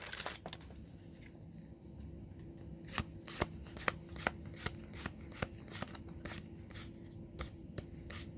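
Magic: The Gathering trading cards being flicked through one at a time, each card giving a short sharp snap at about two and a half a second from about two seconds in, over a faint steady hum.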